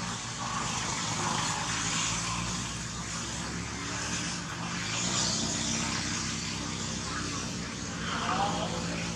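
A motor vehicle engine running with a steady low hum and a broad rushing noise that swells and fades, with a short squeak near the end.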